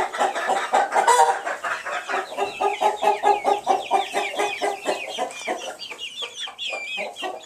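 A flock of chickens clucking continuously in quick, overlapping calls, with higher, curving calls joining in over the second half.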